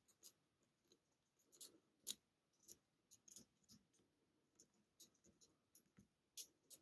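Faint, irregular small clicks of a steel lock pick working the pins inside a pin-tumbler challenge lock held under tension, as the picker feels whether the pins have been overset.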